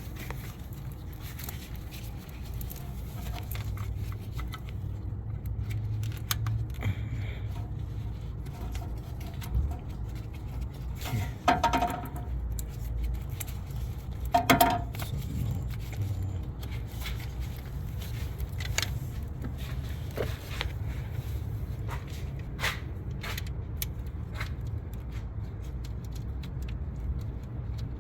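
Metal hand tools clinking and scraping against metal, with two louder ringing clanks about three seconds apart midway, over a steady low hum.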